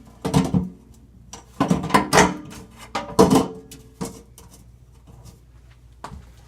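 Metal parts of a new three-piece sink strainer knocking and clinking against each other and the sink as it is taken apart, several sharp clanks with a brief ring, the last about three and a half seconds in.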